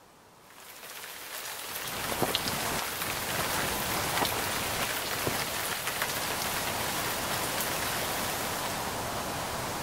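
Steady rain falling, with individual drops ticking sharply, fading in over the first two seconds.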